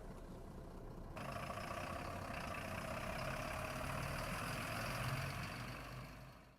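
Truck engine running as the loaded lorry moves off, getting louder about a second in and fading out near the end.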